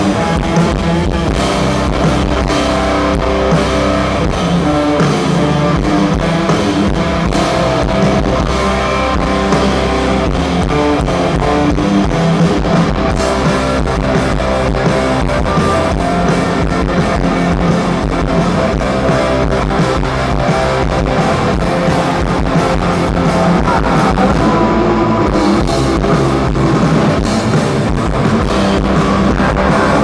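Grunge rock band playing live: loud electric guitars over a drum kit keeping a steady beat.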